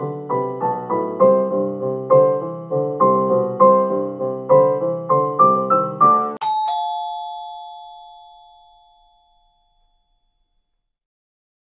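Keyboard piano music in quick repeated notes, cut off after about six seconds by a two-tone doorbell chime, ding-dong, whose tones ring on and fade out over about three seconds.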